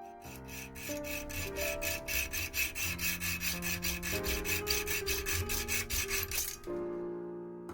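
Quick, even rasping strokes of hand filing or sanding, about six a second, over background piano music; the strokes stop about a second before the end.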